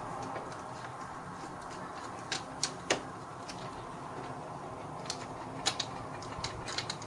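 Screwdriver turning out one of the two screws that hold a uPVC window handle: a scatter of light, irregular metal clicks, several in quick succession near the end.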